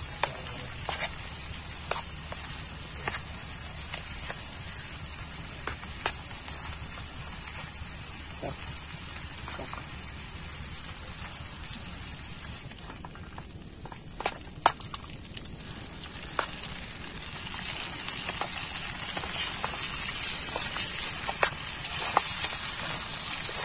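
Small clicks and taps of food and a spoon being handled in a small camping pan on a portable butane stove, over a steady high-pitched whine that drops slightly in pitch about halfway through.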